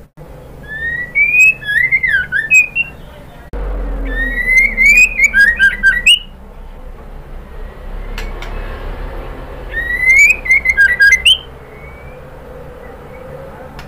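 White-rumped shama singing, the call of a female shama to a male: three bursts of whistled phrases that rise and tumble, laced with sharp, very high clicking notes, with pauses between them.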